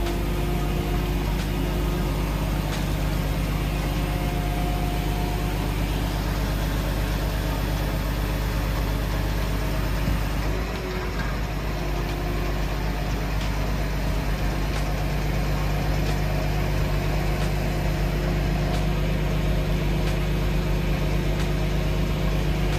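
Heavy truck's diesel engine running steadily at a constant speed: a low, even drone with a dip about ten seconds in.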